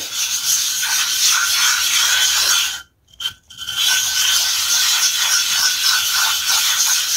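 An Apex-format 25-micron sharpening stone being lapped on a gabbro granite plate in a slurry of water and 50-micron boron carbide powder: a steady wet, gritty scraping in repeated strokes as the stone is flattened. It breaks off for about half a second around three seconds in, then carries on.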